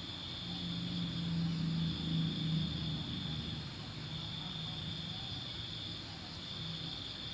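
Crickets trilling steadily in long stretches with short breaks. Under them, a low droning hum swells during the first three seconds and then fades.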